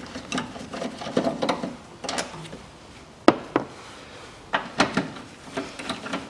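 Socket ratchet wrench clicking in irregular runs with light metal clinks as the engine-mount bolts are turned out, and one sharp metallic knock about three seconds in.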